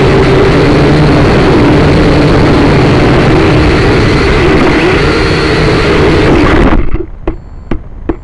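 SYMA toy quadcopter's motors and propellers running close to the onboard microphone, a steady buzzing whine with a wavering hum. The whine cuts off suddenly nearly seven seconds in as the drone comes down and ends up upside down. A few sharp clicks follow.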